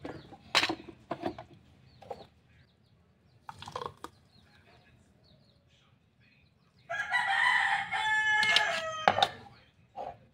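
A rooster crows once, a loud call of a little over two seconds starting about seven seconds in. Before it, a few short knocks come from the plastic blender jar being handled and lifted off its base.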